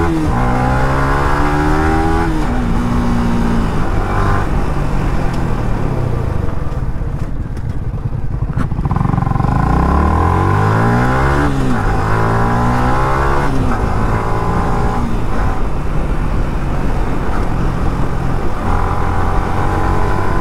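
Yamaha R15 V3's single-cylinder engine accelerating hard through the gears, its note climbing and then dropping at each upshift. The throttle eases off for a few seconds midway, then it pulls through several more gears and holds a steady high-speed note near the end.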